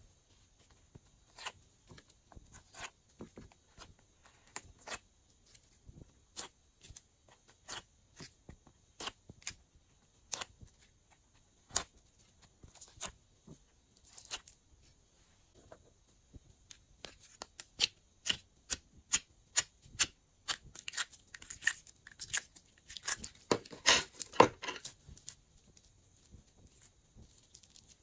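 Short, sharp clicks and pops from hands working soft gel pieces and slime: gel pieces pried out of a silicone mould and laid in a glass dish, then slime handled. The clicks are scattered at first, then come thick and fast, and loudest, in the last third.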